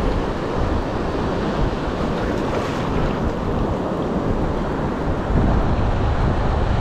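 Wind buffeting the microphone over the steady wash of sea surf on the shore. The low rumble gets louder about five seconds in.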